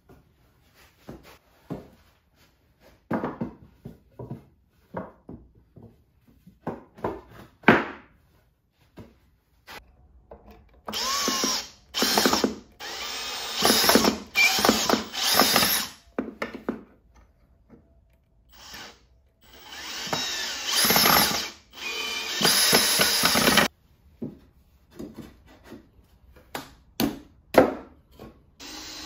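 Scattered knocks from 2x4 boards being handled and set in place. Then a cordless drill drives screws through pocket holes into the 2x4 frame, in two runs of short bursts.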